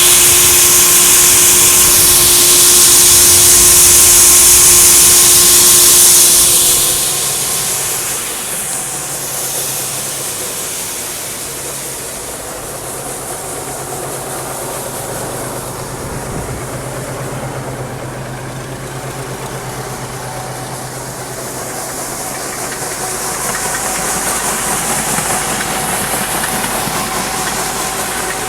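Combine harvester running, with a loud rushing hiss for about the first six seconds that then drops away, leaving the engine's steady drone and a softer hiss.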